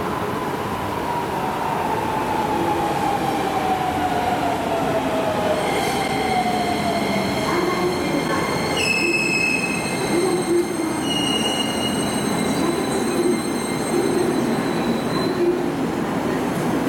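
Hokuso Railway 9200 series electric train pulling into an underground station and stopping. Its traction-motor whine falls steadily in pitch for the first eight seconds as it brakes. From about six seconds in, several steady high-pitched squealing tones join, with rhythmic low thuds under them.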